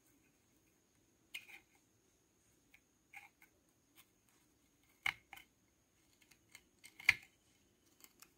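Small metal knitting hook clicking and scraping against the nails of a wooden knitting frame as wool loops are lifted over the nail heads. The clicks are light and irregular; the sharpest come about five seconds in and about seven seconds in.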